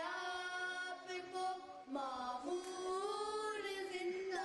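A group of boys chanting a tarana together into microphones. They sing long held notes that shift pitch about two seconds in and again near the end.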